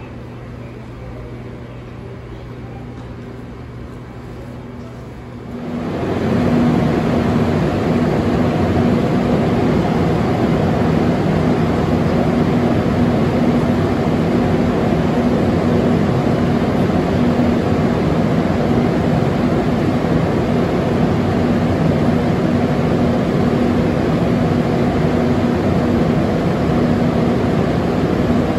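Steady mechanical drone with a low hum. It jumps abruptly much louder about six seconds in and then holds steady.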